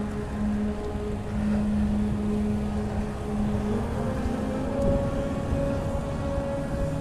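Wind buffeting the microphone and tyre noise from a Brompton folding bicycle being ridden on a paved path, with a steady hum that steps up in pitch about four seconds in.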